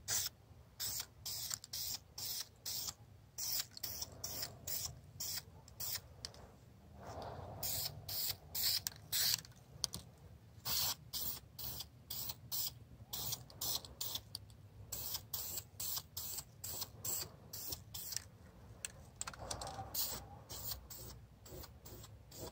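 Aerosol spray can of Dupli-Color rust-barrier primer hissing in many short bursts, one or two a second, as bare metal is primed.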